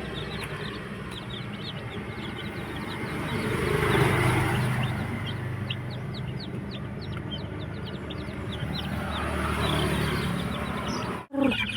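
Chicks peeping: many short, high cheeps, thickest in the middle stretch, over a steady low rumble that swells twice, about four seconds in and again near the end.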